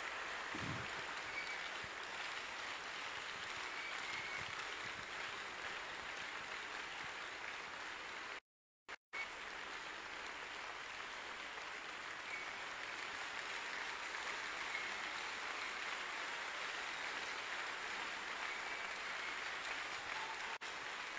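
A large congregation clapping, an even, steady patter of many hands, broken by a brief dropout to silence about eight seconds in.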